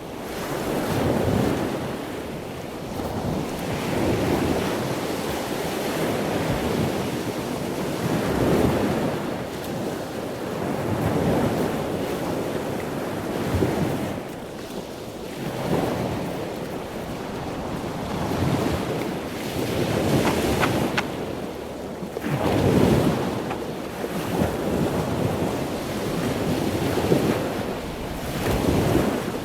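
Ocean waves washing in, a rushing surf that swells and fades every few seconds.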